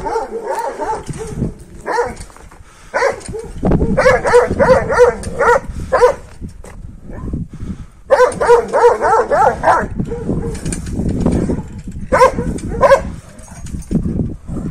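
Kangal shepherd dogs barking excitedly, with two long runs of rapid barks about four and eight seconds in and single barks in between.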